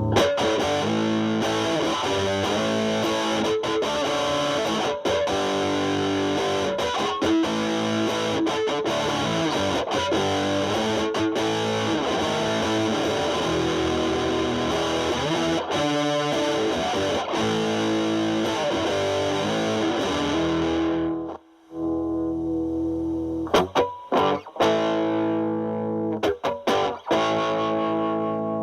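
Electric guitar (Fender Stratocaster) through a Boss DS-2 Turbo Distortion pedal in turbo mode, distortion knob at about three o'clock, into a Marshall Valvestate amp's clean channel, playing a distorted riff and lead line. It stops briefly about 21 seconds in, then goes on with short, choppy chord stabs.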